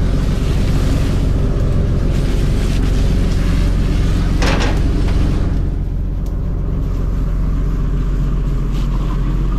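Fishing boat's engine running with a steady low rumble, with a hissing wash of water-like noise over it that drops away about halfway through and a short sharp burst about four and a half seconds in.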